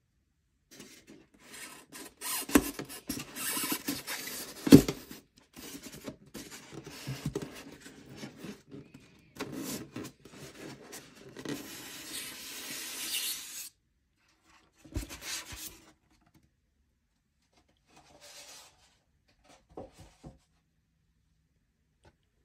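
Polystyrene foam packing lid rubbing and squeaking against the sides of the box as it is worked loose and lifted out, in an uneven run of scrapes with one sharp knock about five seconds in. A few short rubs and taps follow later.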